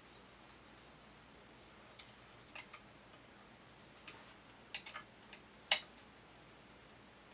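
Sparse, sharp little metallic clicks and taps, about eight of them, the loudest near the end, from a small screw and tools being handled on the shotgun's barrel-collar parts as its lock screw is put back.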